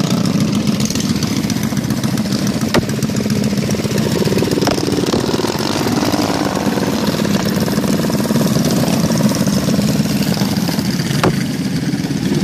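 Small mini bike engines idling steadily close by, with a few short sharp clicks over the engine note.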